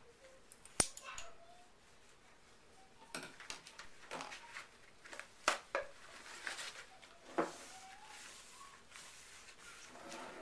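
Plastic measuring cups and containers knocked and set down on a wooden table, several sharp clacks scattered through, the loudest about a second in, with some rustling near the end.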